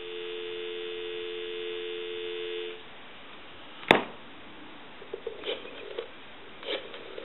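Telephone dial tone, two steady tones together, heard from the handset of a Takara French-style rotary desk phone on a live line. The tone cuts off about three seconds in, followed a second later by a sharp click and then a few faint clicks from the phone.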